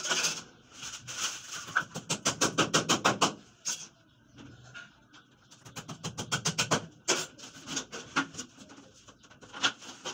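Hammer tapping on a PVC wall panel in two runs of quick sharp taps, about two seconds in and again about six seconds in, with a few single knocks between.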